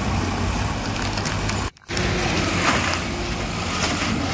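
Diesel tractor engines running as tractors tow a fully loaded trolley on tow chains, with a low steady rumble under a noisy wind-like haze. The sound cuts out for a moment about halfway through.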